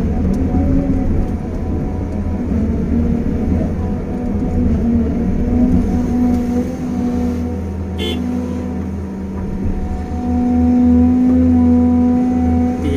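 Caterpillar 320 GC excavator's diesel engine running steadily under load as its bucket pushes a bulldozer stuck in mud. The engine works harder and louder for a couple of seconds near the end, and there is a short clank about eight seconds in.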